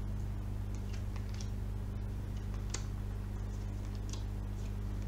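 Tarot cards being dealt from the deck and laid down on a glass tabletop: scattered light clicks and taps, the sharpest a little past halfway, over a steady low hum.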